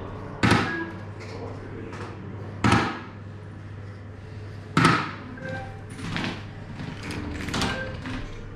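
Three soft-tip darts striking an electronic dartboard, about two seconds apart, each a sharp smack with a short ring. Quieter sounds follow near the end.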